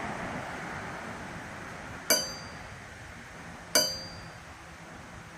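Wrought iron anvil face struck twice, about a second and a half apart, each strike giving a bright, high ring that dies away quickly: a rebound test of the anvil.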